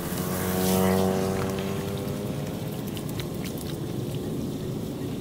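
A motor scooter passes on the wet road: its engine note falls as it goes by, with tyres hissing through standing water, loudest about a second in and fading over the next second. A few light splashes and clicks of water follow.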